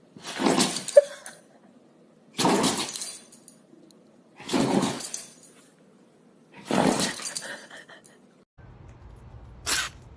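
A dog sneezing four times, about two seconds apart, each a short, noisy blast of air through the nose. Near the end, over a low hum, there is one much shorter, sharper burst.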